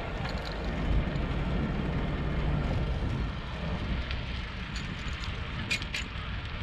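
Wind buffeting an action-camera microphone and a steady rumble while riding a bicycle along a paved path, with two short clicks just before six seconds in.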